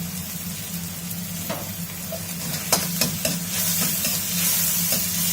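Onion stir-frying in hot oil, sizzling steadily while a metal spatula knocks against the pan several times, the sizzle growing louder in the second half.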